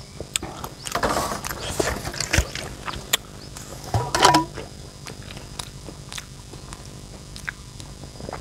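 A person chewing a mouthful of young papaya in chili sambal, with wet mouth clicks and smacks and a few hissing breaths in between from the chili heat.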